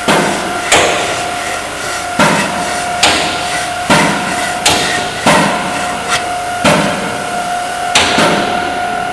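Hacksaw cutting through an aluminium part clamped in a bench vise: a rasping stroke about every three-quarters of a second, over a steady ringing tone.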